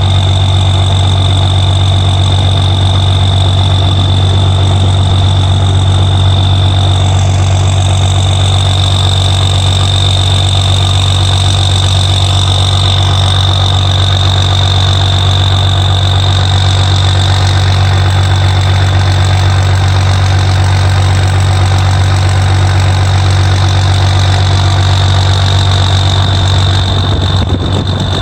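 Straight-piped M931A2 5-ton 6x6 truck's Cummins 6CTA8.3 turbo diesel idling steadily and loud, with a constant high whine over the deep exhaust drone.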